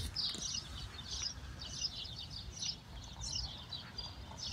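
Small songbirds chirping in quick, repeated high calls, over a low rumble of wind or handling noise on the microphone.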